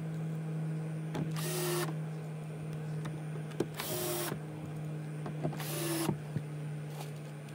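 Cordless drill with a Phillips bit driving screws through a plastic gear track into a hard plastic kayak hull: three short runs of the motor, each about half a second, over a steady low hum.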